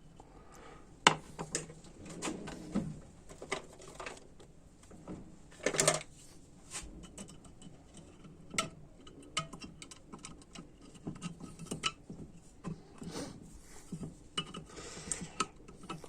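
Irregular clicks, taps and clinks of small metal parts being handled and fitted as a valve is installed into an A604/41TE automatic transmission valve body; the sharpest clicks come about a second in and around six seconds in.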